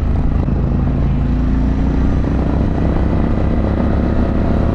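2024 Harley-Davidson Pan America's 1250 V-twin engine running steadily while riding.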